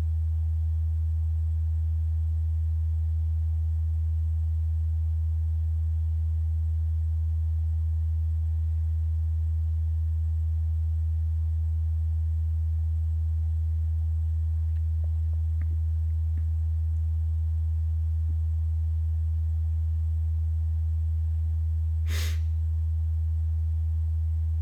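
A loud, steady low hum that does not change, with a few faint ticks in the middle and one short, sharp click or scrape about 22 seconds in.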